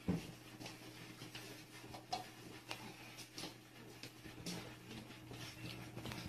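Cats eating dry kibble from plates: faint, scattered crunches and clicks over a low steady hum.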